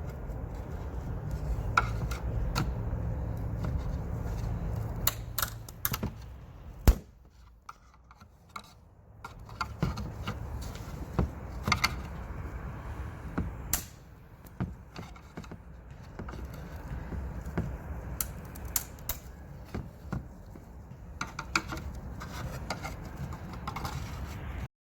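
Screwdriver prying a glued plastic part loose: scattered clicks, taps and scrapes as the old glue cracks, with one sharper knock about seven seconds in.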